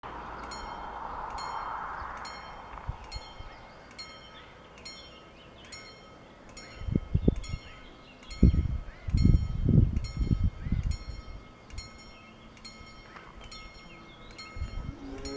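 Level-crossing warning bell ringing steadily at about two strikes a second, the signal that the crossing is closing for an approaching train. A few louder bursts of low rumble come around the middle.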